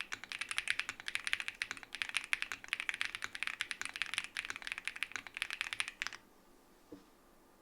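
Fast typing on a gasket-mounted custom mechanical keyboard with Keygeek Peachy switches, SW Wild keycaps and a polycarbonate plate, in quick runs of key presses with brief pauses. The typing stops about six seconds in, followed by one soft knock.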